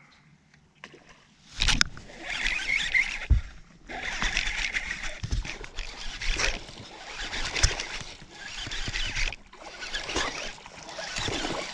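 Water splashing and sloshing in repeated bursts, starting with a sudden loud splash about two seconds in.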